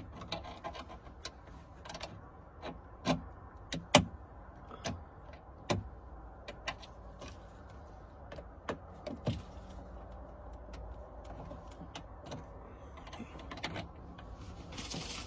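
Irregular small clicks and taps of a metal pick probing inside the access hole of a Volkswagen Passat door handle, working to release the hidden retaining tab. The clicks come singly at uneven intervals over a low steady hum, with a brief hiss near the end.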